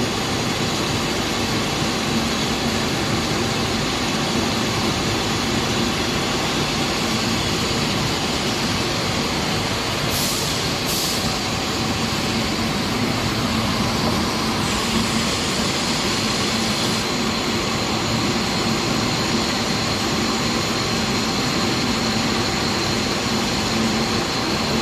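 Glass-processing machinery running steadily, a dense mechanical hum with a few steady high tones. Two short hisses of air come about ten and eleven seconds in, and a steady high whine sets in a little past halfway.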